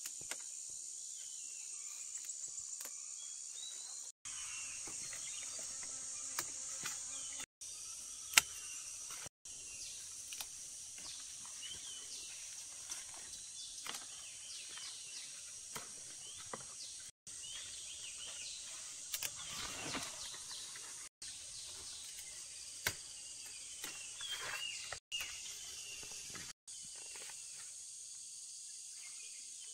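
Insects buzzing in a steady high chorus, with scattered light clicks and rustles and one sharper click about eight seconds in. The sound drops out briefly several times.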